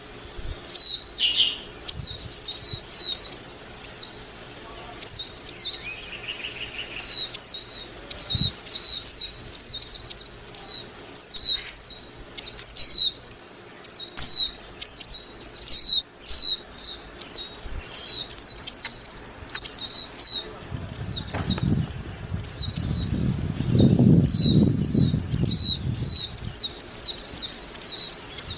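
White-eye (vành khuyên) singing: rapid runs of short, high, falling chirps, several a second, repeated throughout. A low rumble joins in for a few seconds about three-quarters of the way through.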